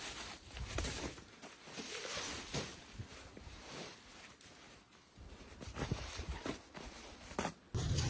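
Faint, irregular crunches and rustles of a person moving about and handling things in snow.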